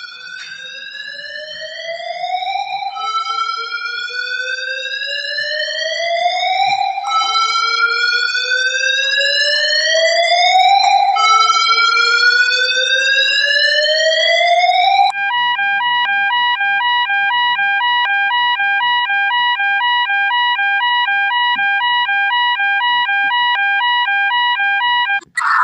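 Electronic emergency-alert alarm siren: four rising sweeps, each climbing for about four seconds and then dropping back. About fifteen seconds in it switches to a rapid alternating two-tone warble, which cuts off abruptly near the end.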